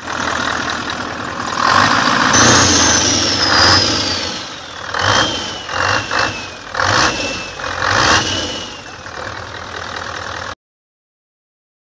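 Engine revving in repeated short bursts over a steady running roar, with a high whistle falling slowly in pitch across several seconds; the sound cuts off abruptly near the end.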